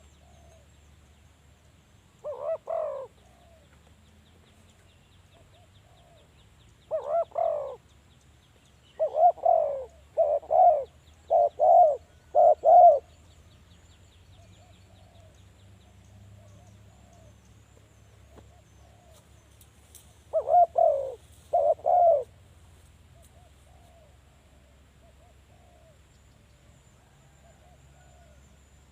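Spotted dove cooing in loud phrases of repeated coos, the longest run from about nine to thirteen seconds in, with fainter cooing between the phrases.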